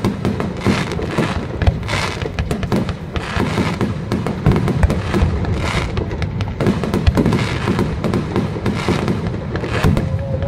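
Aerial fireworks shells launching and bursting in quick succession: a dense, unbroken run of bangs and crackles.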